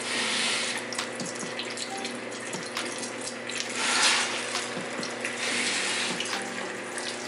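Battered chicken pieces deep-frying in a saucepan of hot oil, a steady sizzle that surges louder about four seconds in as another piece is dropped in. The cooks think the oil is way too hot, browning the chicken fast.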